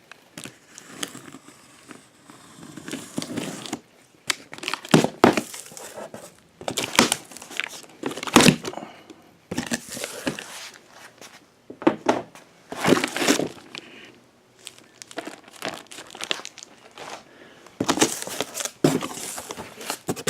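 Cardboard shipping box and plastic packing being opened and handled: irregular crinkling, rustling and tearing with a few sharp knocks.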